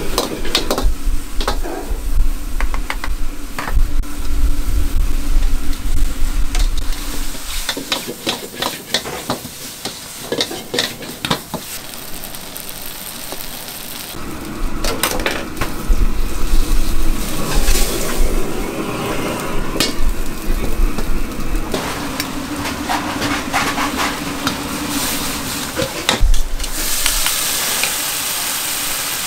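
Food sizzling as it is stir-fried in a hot pan, with a metal utensil clattering, knocking and scraping against the pan in quick, irregular strokes. A low rumble comes and goes underneath.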